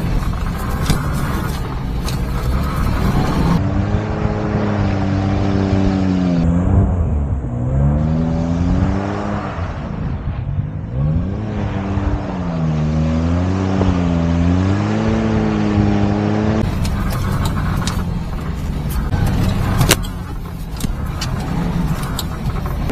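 Supercharged 660cc engine of a Daihatsu Hijet kei truck running under load, its pitch rising and falling every second or two as the throttle is worked on and off. Scattered sharp clicks come in the first few seconds and near the end.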